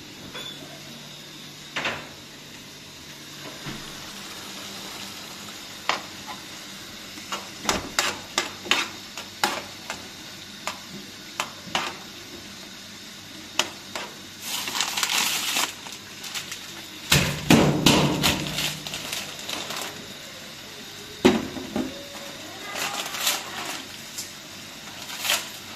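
Pots and dishes being handled: a run of separate knocks and clatters, with a short hiss about halfway through and the loudest clatter a little after it.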